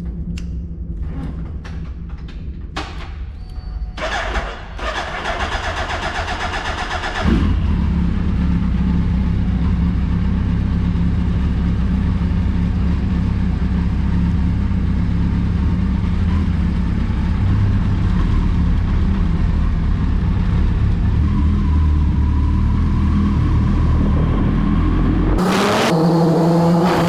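Suzuki Hayabusa 1300's inline-four engine in a concrete underground car park: a few clicks and a noisy starting stretch, then the engine catches about seven seconds in and idles steadily. Near the end the revs rise as the bike pulls away.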